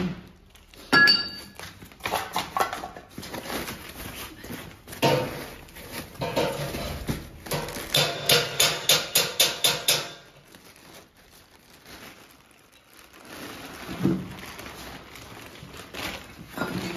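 Wood-shaving packing, cloth wrapping and a plastic bag being rustled and pulled out of an opened wooden crate, with a quick run of crackles near the middle. About a second in there is a sharp knock with a short metallic ring.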